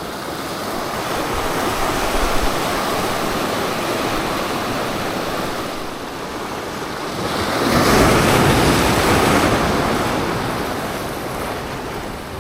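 Ocean waves surging and washing over shoreline rocks, with one larger surge building about seven seconds in and falling away near the end.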